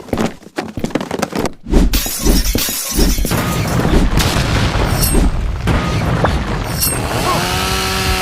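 Stock sound effects piled on top of each other: a rapid run of hits and booms, then a long crash of breaking glass, over music. Near the end a held pitched tone comes in.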